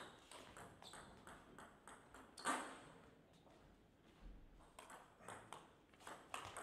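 Table tennis ball clicking back and forth off bats and table in a rally, with one louder knock about two and a half seconds in as the point ends. After a short pause, the clicks of the next rally begin.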